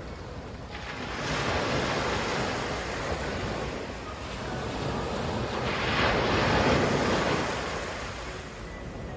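Sea waves washing onto the shore, two surges rising and fading, over a steady low rumble of wind on the microphone.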